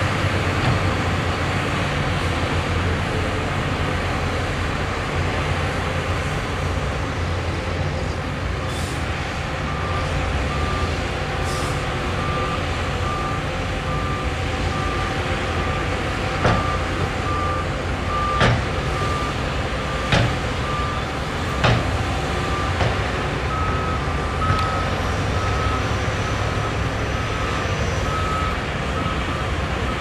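Diesel engines of Shantui crawler bulldozers running steadily, with a reversing alarm beeping in a steady, even rhythm from about a third of the way in. Several sharp knocks in the second half.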